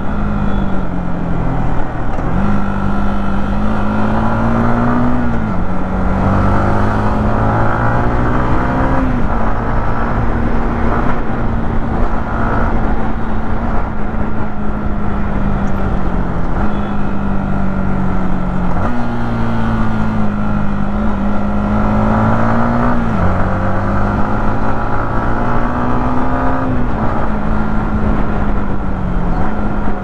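Yamaha MT-15's single-cylinder engine and stock exhaust under way in traffic. The note climbs gently and then drops sharply several times as the rider upshifts and eases off the throttle, over road and wind noise.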